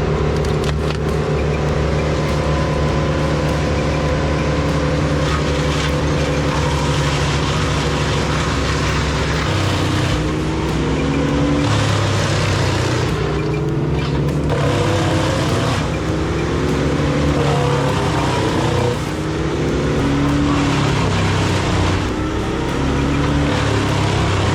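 Heavy machine's engine running steadily, then from about ten seconds in its pitch rises and falls again and again as it works under load.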